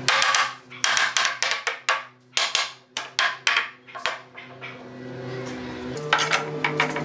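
A wooden block knocking on the boards of a glued-up, clamped tabletop to tap them flush: about a dozen sharp wooden knocks in quick, uneven succession over four seconds. Near the end a steady music drone comes back, with a few light clicks.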